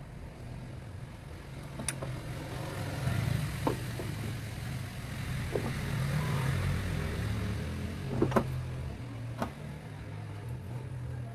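A motor vehicle engine running, its low hum growing louder from about two seconds in and fading after about nine seconds, with a few sharp clicks and knocks, the loudest about eight seconds in.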